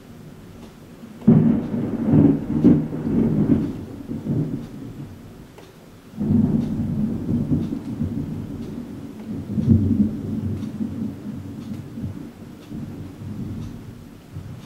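Thunder: a sudden crack about a second in that rumbles on for a few seconds, then a second peal about six seconds in that rolls on, swells again near ten seconds and slowly dies away.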